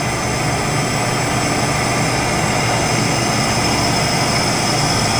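Steady machinery hum with a faint high whine, from a powered-up CNC turning center standing idle between operations.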